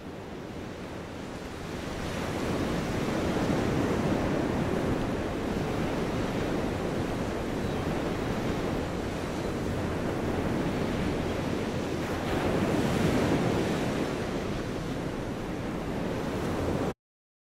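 Ocean surf washing on a sandy beach, a steady rush that swells twice, about four seconds in and again near thirteen seconds. It fades in at the start and cuts off abruptly just before the end.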